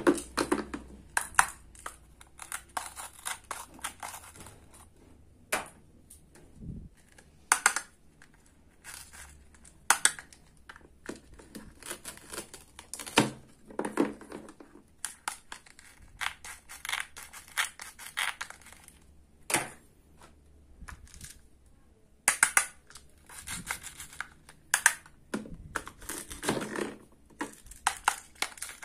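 Plastic toy fruits being cut apart with a toy wooden knife: repeated short, scratchy rips of the hook-and-loop pads that hold the halves together, mixed with light clicks and taps of the plastic pieces being handled.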